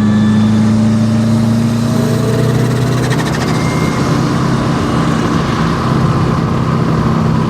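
Subaru Impreza WRX rally car's turbocharged flat-four engine running hard at high, fairly steady revs, its pitch easing slightly about two to three seconds in.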